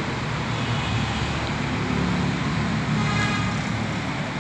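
Steady low background rumble, with no words over it.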